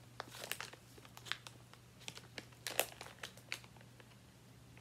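Plastic candy bag crinkling off and on as a marshmallow is taken out of it, stopping about three and a half seconds in.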